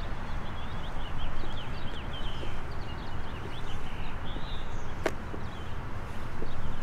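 Footsteps on asphalt over a steady low rumble, with birds chirping in many quick short notes throughout. A single sharp click comes about five seconds in.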